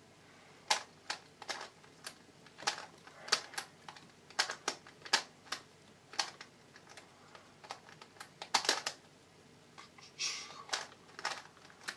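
A MoYu Skewb puzzle being turned through a solve: sharp, irregularly spaced clicks from the turning layers, which the solver credits to a ball bearing inside that makes it clicky.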